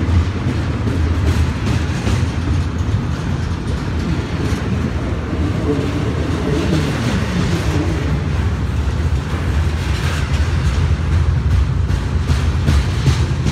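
Double-stack intermodal well cars rolling past close by: a steady low rumble of steel wheels on rail, with scattered clicks and clunks from the wheels and cars.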